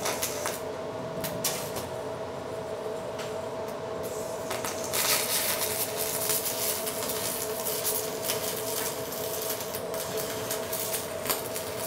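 Stick-welding arc of a Zeller 480 aluminium-silicon electrode burning on aluminium plates as a corner joint is welded: a steady crackling hiss with occasional sharp pops, a little louder about five seconds in, over a faint steady tone.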